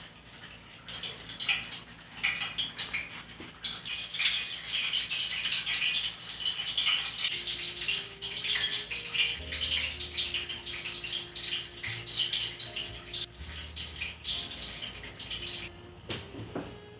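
Cooking oil poured in a thin stream into a stainless steel frying pan: a steady trickling splash, with small irregular ticks.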